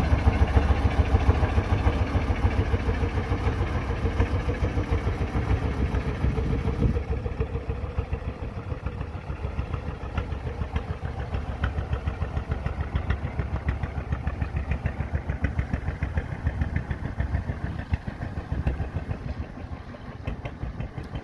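A fishing boat's engine running steadily with a rapid even beat, its sound growing a little duller and quieter after about seven seconds.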